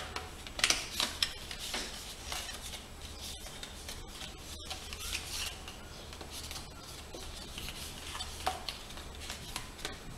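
Cardstock panels of a folded 'endless card' being flipped open and shut by hand: irregular paper rustling and sliding with sharp flaps and snaps, loudest about a second in, over a steady low hum.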